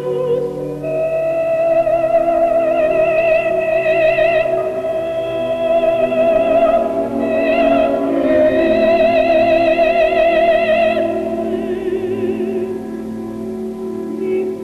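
Operatic soprano singing long held notes with a wide vibrato over orchestral accompaniment.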